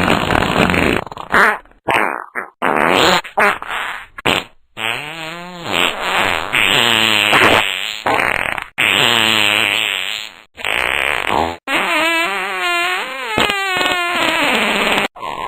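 A string of fart noises, one after another with short gaps between. Several are long and fluttering with a wavering pitch, and one slides downward near the end.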